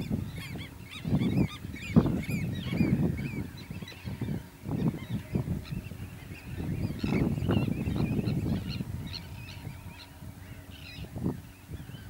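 Waterbirds calling: bursts of low calls come and go, loudest about two seconds in and again around seven to eight seconds in, over many short high chirping calls.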